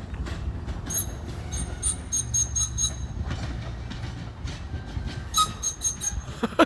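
Commuter train rolling past with a low rumble, its wheels squealing in two spells of high-pitched squeals, about a second in and again near the end.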